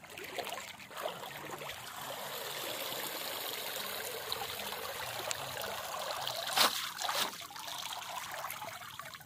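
Water splashing and trickling as a plastic crate of small live fish is sloshed in shallow river water to wash them, then lifted so the water drains out through its slats. Two sharper splashes or knocks come about six and a half and seven seconds in.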